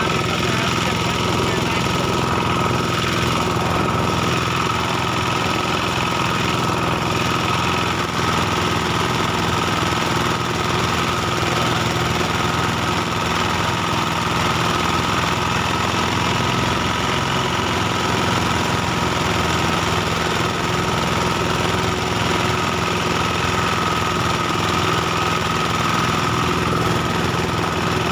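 Small engine of a rice threshing machine running steadily at a constant speed.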